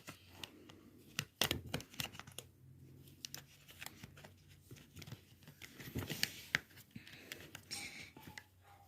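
Irregular clicks, knocks and rattles of a kids' scooter's plastic and metal parts being handled and fitted together by hand.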